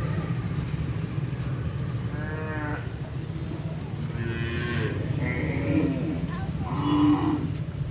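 Several drawn-out animal calls, each under a second long, about 2, 4, 5 and 7 seconds in, over a steady low rumble.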